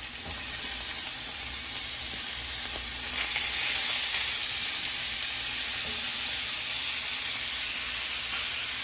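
Ground beef sizzling in olive oil in a stainless steel frying pan as more raw meat is pressed in by hand: a steady hiss that gets a little louder about three seconds in.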